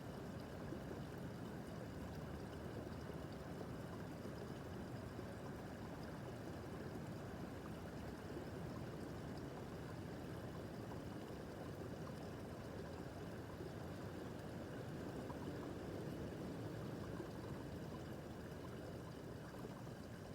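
Small babbling brook, water trickling and gurgling over stones in a steady, unbroken flow.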